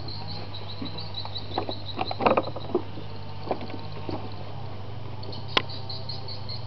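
Insects chirping in a fast, even pulsing trill, with a steady low hum underneath. A scatter of short knocks and scuffs comes a couple of seconds in, and one sharp click near the end.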